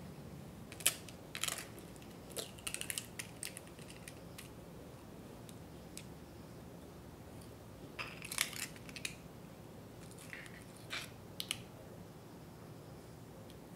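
Eggshells cracking and clicking as eggs are broken and the yolks are passed between the shell halves to separate them from the whites. There are two clusters of crisp cracks and crackles, about a second in and about eight seconds in, with a few lighter shell clicks between and after.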